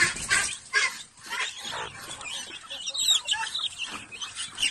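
A flock of Rhode Island Red chicks peeping, many short high calls overlapping without pause, with a couple of brief louder bursts of noise in the first second.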